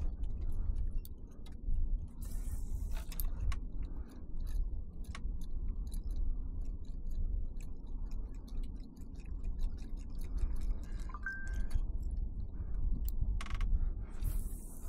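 Spinning fishing reel being cranked on a lure retrieve: scattered light clicks and ticks over a steady low rumble.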